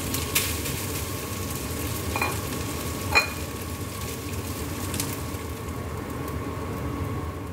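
Rice frying in a wok, sizzling as a spatula stirs and scrapes it. Two short ringing clinks come about two and three seconds in, the second the loudest sound, and a thin steady tone runs underneath.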